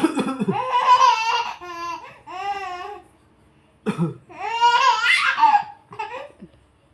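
Baby laughing in high-pitched squealing laughs, set off by an adult's short coughs: a cough at the start brings one laugh bout, and a second cough about four seconds in brings another.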